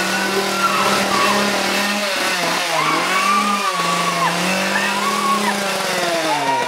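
Chainsaw engine running at high revs. Its pitch dips and rises again twice as the throttle is let off and opened back up.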